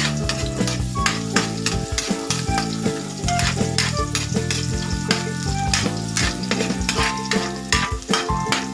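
Food sizzling in a hot pan while a utensil stirs it, with frequent short scraping and clinking strokes against the pan. Background music plays underneath.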